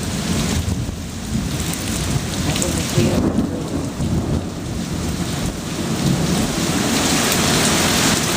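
Heavy rain pouring steadily, with thunder rumbling low underneath. The rain hiss grows louder over the last couple of seconds.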